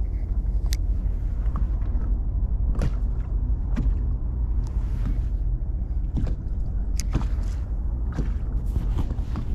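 Steady low rumble of wind buffeting the microphone over open water, with scattered light clicks and taps from the rod and spinning reel as a hooked fish is reeled in.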